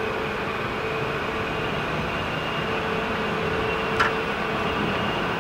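Steady mechanical hum and rumble of a factory floor, with a faint humming tone, and a short sharp squeak about four seconds in.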